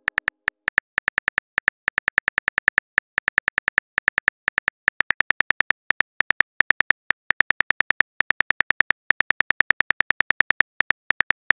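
Phone keyboard key-click sound effect: a rapid, slightly uneven run of short, crisp ticks, about six a second, as a text message is typed out letter by letter.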